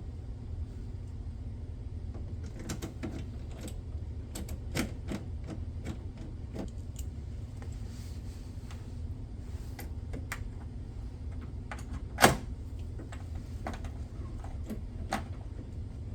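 Scattered small clicks and taps of a hand tool and metal parts as nuts are started on the door handle's studs inside a car door, with one sharper knock about twelve seconds in. A steady low hum runs underneath.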